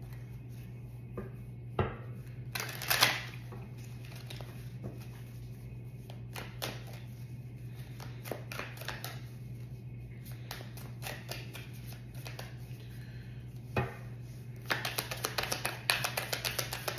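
A deck of oracle cards being shuffled overhand by hand: scattered card flicks, a quick flurry of rapid card clicks about three seconds in, and a dense run of fast shuffling near the end. There are also two sharp knocks, and a steady low hum runs underneath.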